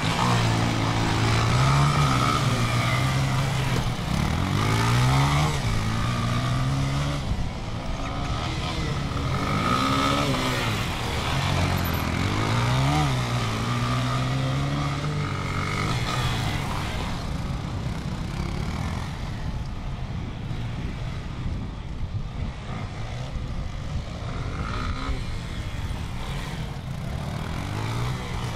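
Off-road motorcycle engines revving up and dropping back again and again as the bikes accelerate and slow through a dirt course. The pitch rises and falls several times and is loudest in the first half.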